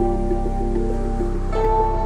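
Background music with sustained notes over a low drone; the chord changes about one and a half seconds in.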